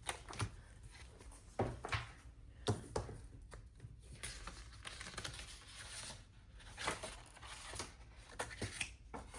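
Paper rustling with scattered soft taps and clicks as planner pages and sticker books are handled.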